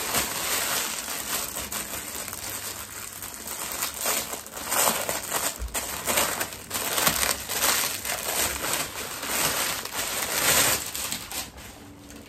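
Plastic clothing packaging crinkling and rustling in irregular bursts as it is handled and opened, dying down near the end.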